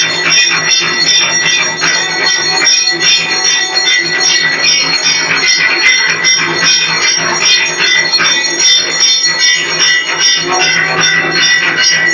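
Temple bells ringing continuously for an arati: fast, steady strokes with their ringing tones overlapping into one sustained sound.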